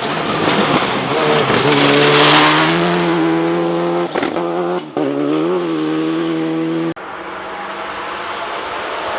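Rally car engine running at high revs as the car passes close, with a burst of rushing noise at its loudest moment and two brief dips in the engine note. It drops suddenly about seven seconds in to a quieter, more distant engine whose note slowly rises.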